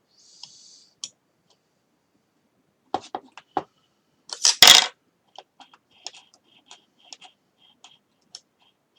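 Small sharp clicks and taps of hand tools and plastic suspension parts being handled while the lock nut on a radio-controlled buggy's rear hinge pin is eased off, with a louder clatter about halfway through and light ticking after it.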